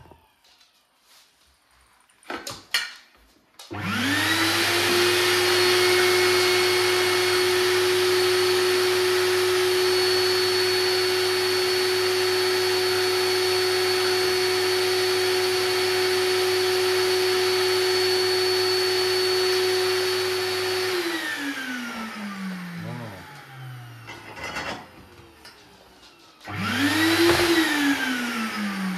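Ash vacuum cleaner switched on a few seconds in, running at a steady whine for about seventeen seconds, then switched off and winding down with falling pitch. Near the end it is switched on again for a moment and winds down once more. It is sucking soot from a masonry bread oven during sweeping.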